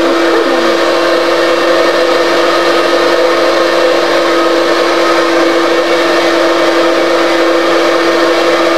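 Hand-held electric device with a motor, worked over a shaved scalp, running steadily: a loud, even whine holding one pitch over a hiss.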